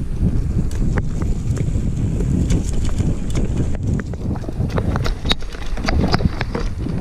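Mountain bike descending a dirt trail at speed: a loud rumble of wind on the microphone and tyres over the ground, with irregular sharp clicks and rattles from the bike over bumps, thickest in the second half.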